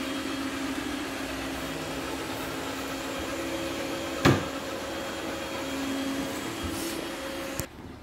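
An Ecovacs Deebot Ozmo T9+ robot vacuum-mop running on a tiled floor, with a steady motor and fan hum. There is one sharp knock about halfway through, and the hum cuts off abruptly near the end.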